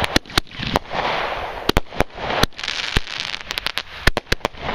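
Fireworks going off: irregular sharp bangs and pops, with a quick run of them near the end, between stretches of rushing hiss.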